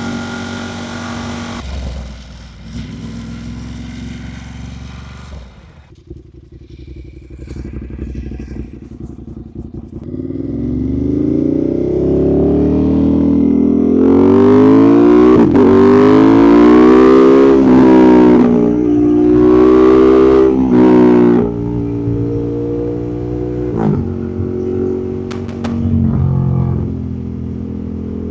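Ducati Monster 1200S's L-twin engine running at low revs for about the first ten seconds, then accelerating hard through the gears: the revs climb and drop back at each upshift, several times in a row. Heard through a body-worn wireless mic with noise cancellation switched on.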